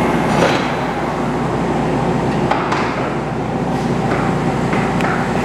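Machinery running steadily, with a few short light scrapes or clicks over the top.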